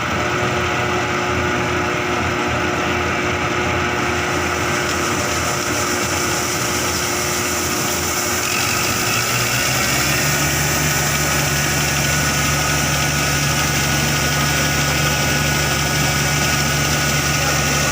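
Claas Crop Tiger 40 combine harvester running steadily. About ten seconds in its engine picks up speed and holds there, with a higher whine joining in shortly before.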